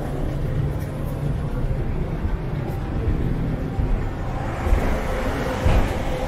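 Red articulated city bus pulling in alongside the platform, its engine rumble and tyre noise growing over the last couple of seconds, over steady street traffic.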